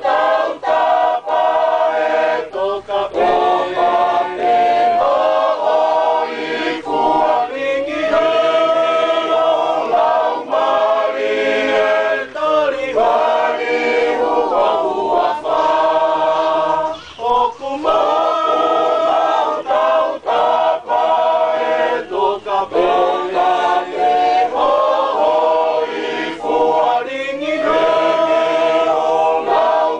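Tongan student choir of young men and women singing in parts, phrase after phrase with short breaks for breath.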